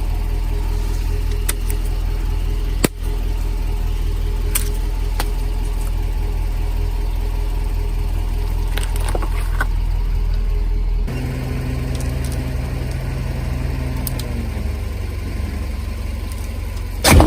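Car engine idling steadily with a low hum, with a single click about three seconds in. The engine note shifts about two-thirds of the way through and dips slightly, and a burst of sharp cracks comes at the very end.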